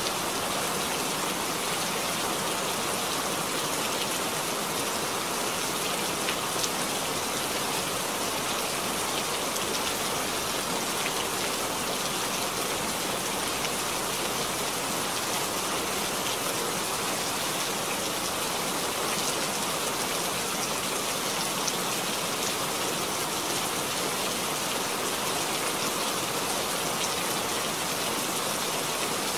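Steady rain falling into a puddle, a constant even hiss with individual drops ticking here and there.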